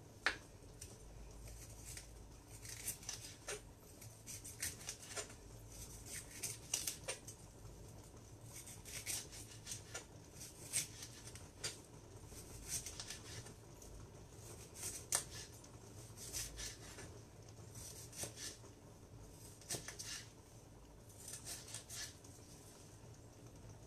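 Kitchen knife slicing tomatoes on a chopping board: irregular crisp cuts and light taps of the blade on the board, in short runs with brief pauses.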